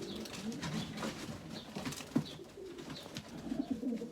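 Racing pigeons cooing, low repeated rolling calls, with a couple of sharp clicks about one and two seconds in.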